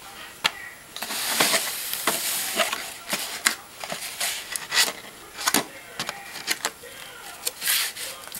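Cardboard packaging being handled: rustling and scraping of box flaps and an inner cardboard box, with a scattering of sharp taps and knocks, including a longer rustling stretch about a second in.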